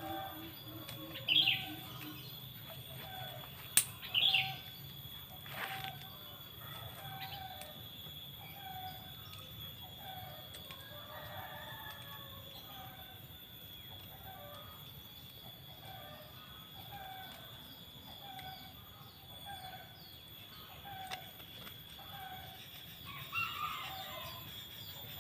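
Birds calling outdoors: a short note repeating about every three-quarters of a second, two louder, sharper calls in the first five seconds, over a steady high-pitched whine, with a few sharp clicks.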